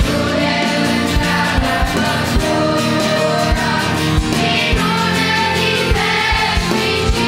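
Children's choir singing a hymn with band accompaniment, over a steady low beat of about two thuds a second.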